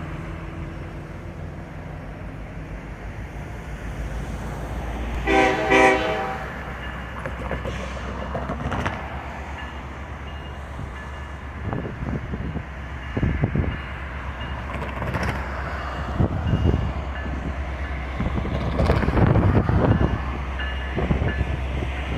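Union Pacific EMD SD70ACe diesel locomotives pulling out with a loaded rock train: a steady low diesel rumble, and one blast of about a second on a Nathan K5LA five-chime horn about five seconds in. A grade-crossing bell rings, and thumps and rumble build as the train draws up to the crossing.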